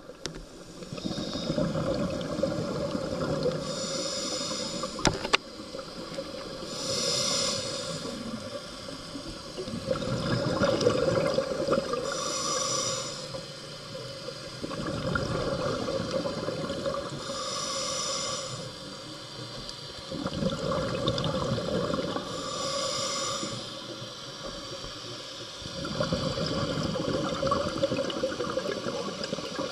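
Scuba diver breathing through a regulator, heard underwater: a short hissing inhale about every five seconds, each followed by a longer bubbling exhale.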